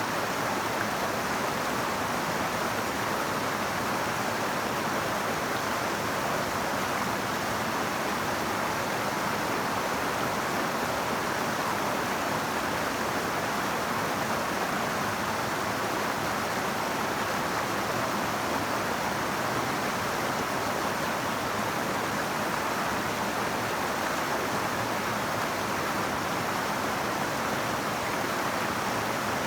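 River water flowing, a steady even rush with no single splashes standing out.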